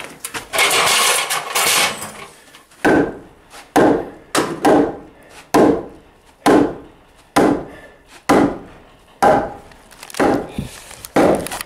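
Heavy wooden post being knocked into place at its foot: first about two seconds of wood scraping against wood, then about a dozen sharp blows on the timber, roughly one a second.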